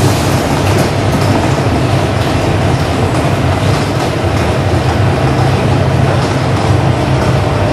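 Loud, steady rumbling noise, with a strong low hum under an even hiss and no breaks.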